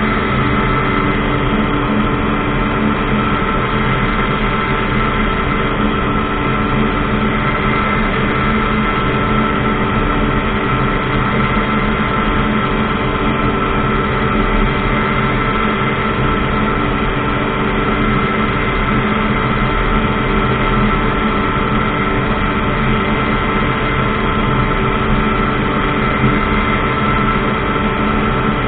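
Ultralight aircraft engine and propeller running at a steady, unchanging pitch in flight.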